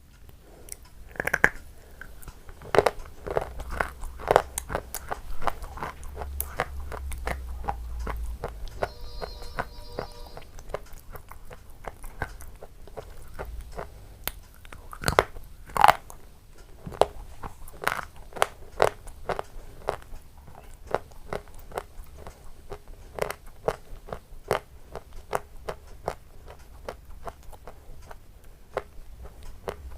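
Close-miked eating: crisp, crunchy bites and chewing, with a steady run of sharp crunches of varying loudness.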